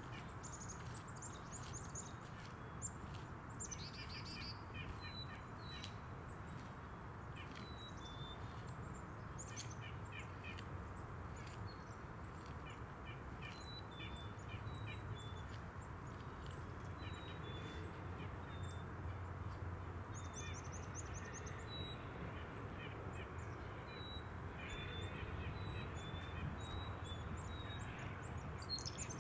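Wild birds chirping and calling in short, high notes scattered all through, over a steady low background rumble.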